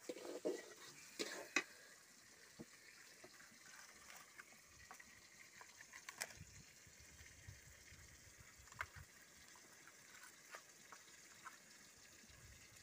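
Faint wood fire burning in a clay chulha: a low steady hiss with scattered sharp crackles. A few louder knocks and rustles come in the first two seconds.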